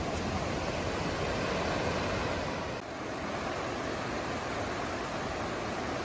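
Steady rush of flowing water, with a brief dip about three seconds in.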